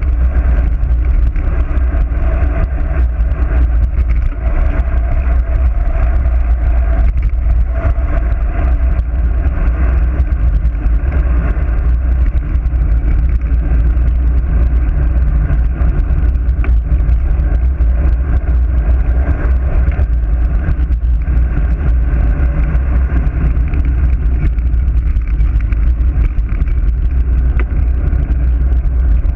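Wind rushing over a GoPro's microphone on a road bike descending at speed: a loud, steady low rumble, with the bike's tyres running on the asphalt beneath it.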